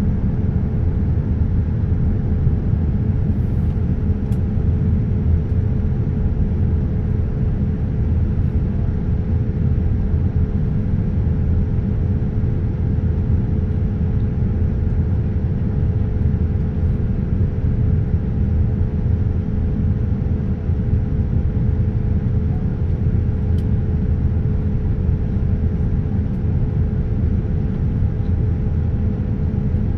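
Steady in-flight cabin noise inside a Boeing 787-9 airliner: an even low rumble with a faint steady hum above it.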